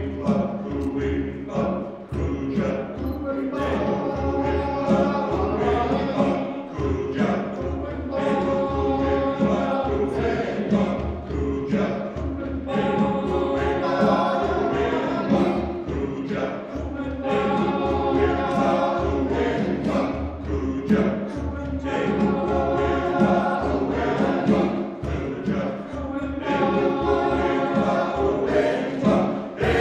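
Men's choir singing, in phrases with short breaks between them.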